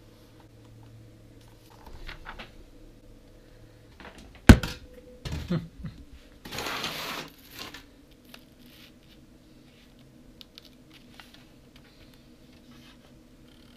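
Handling noises in a small room: one sharp knock about four and a half seconds in, a few lighter bumps just after it, then almost a second of scraping rustle as a tall white board is gripped and moved. After that there are only faint scattered ticks.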